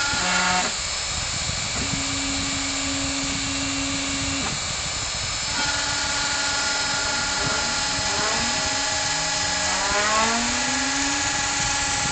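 CNC router engraving wood: the spindle runs steadily while the stepper motors whine, their pitch gliding upward several times as the axes speed up between moves.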